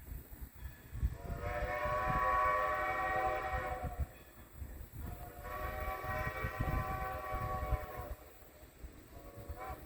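Steam whistle of Great Western 90, a 2-10-0 steam locomotive, sounding for the grade crossing: two long blasts and then a short one. The low rumble of the approaching train runs underneath.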